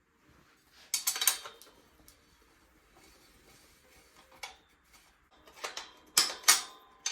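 Metal bicycle parts and tools clinking and knocking as a mountain bike is stripped down: a cluster of clatter about a second in, a lone knock later, then a quicker run of clinks near the end.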